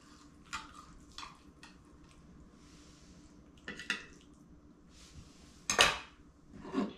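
Metal spatula clinking and scraping against a glass baking dish and a ceramic plate as a serving of casserole is cut out and set on the plate. It makes a string of light clinks, with the loudest near the end as the spatula is set down.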